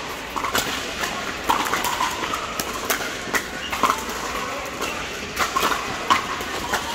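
Hollow pops of pickleball paddles hitting plastic balls, coming from several games on neighbouring courts at uneven times, a dozen or so in a few seconds. Each pop rings briefly in the large indoor hall.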